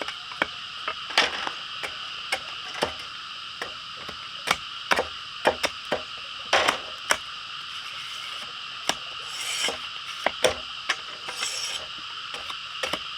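Irregular sharp wooden knocks and clicks, one or two a second, as bamboo is worked by hand, over a steady high buzzing in the background.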